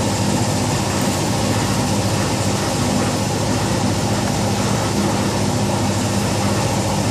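Air compressor running with a steady, unchanging hum.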